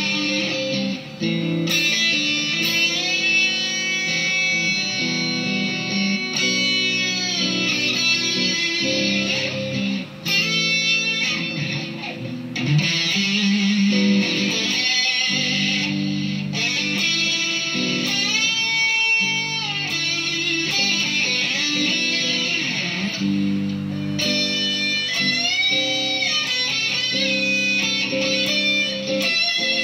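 Electric guitar, a Squier Bullet Stratocaster through a Marshall Silver Jubilee amp with Celestion Greenback speakers, playing overdriven lead lines with frequent string bends. The lead sits over a sustained lower rhythm part from a looper, with reverb and chorus on the tone.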